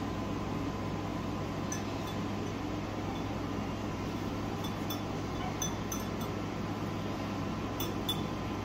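A few light glass clinks in quick pairs and small clusters, the sound of a paintbrush tapping against a small glass water bowl, over a steady room hum.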